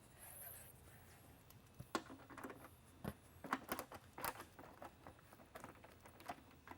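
Faint, scattered clicks and taps of a screwdriver and plastic parts being handled while the screws holding a mini lightbar's outer dome are removed, with a brief high scrape near the start and a quick run of clicks about midway.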